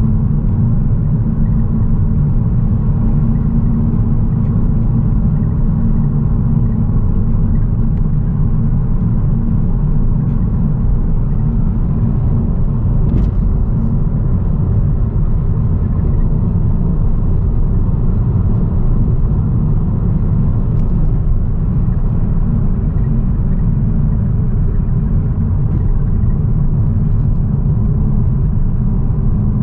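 Steady low rumble inside a Ford Focus ST's cabin while it cruises at about 55–60 mph: engine drone mixed with tyre and road noise, holding even throughout.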